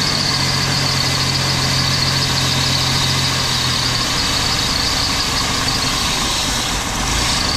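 Ford Taurus engine idling while Seafoam is drawn into it through a vacuum line, with a steady high whine over the engine note. The engine's low note drops about four seconds in.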